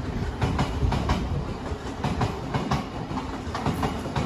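Steady low rumble with irregular sharp clicks and clatter, a few a second.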